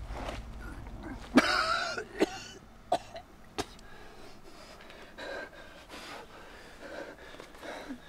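A man coughing hard four times in quick succession, about one cough every 0.7 seconds, the first the loudest and longest. Ragged, heavy breathing follows.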